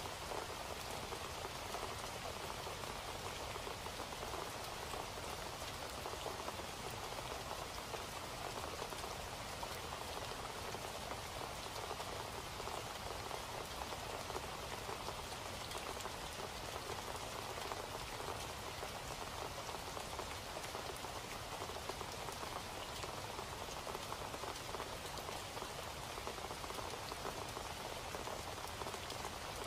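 Steady rain: an even wash of many small drop ticks that neither builds nor fades.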